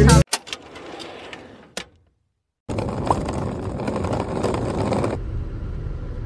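Music cuts off right at the start; then faint background noise with a couple of clicks, a second of dead silence, and a louder steady noise that drops back to a lower hum about two and a half seconds later.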